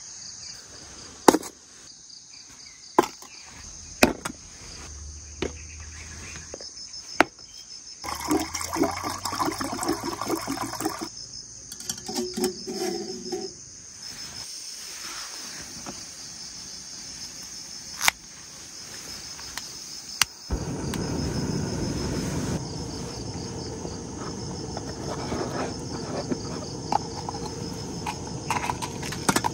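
A steady high, pulsing insect chorus runs throughout. Over it come sharp clicks and knocks every few seconds, a stretch of clattering and rustling about a third of the way in, and a steady low rushing noise that starts suddenly about two-thirds of the way through.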